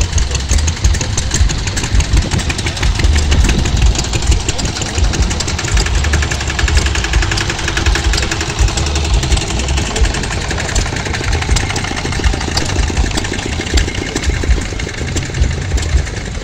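Vintage stationary engines running, a steady, dense clatter of rapid firing beats.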